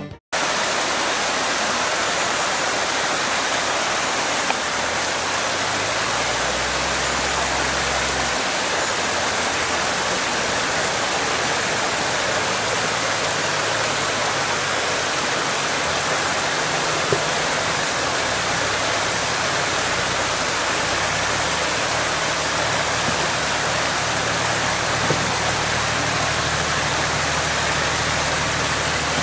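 Mountain stream rushing steadily over rocks and concrete slabs. Beneath it a Nissan Patrol's engine runs at low revs, a low hum that comes up briefly a few seconds in and again near the end.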